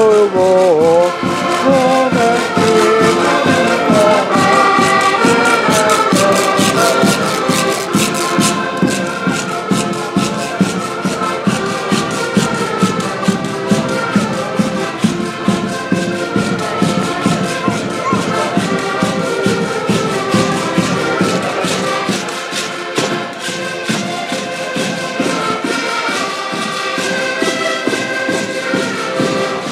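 Portuguese street folk band playing a lively traditional tune: a melody over a steady drumbeat with rattling percussion. It grows fainter in the last third as the band moves off.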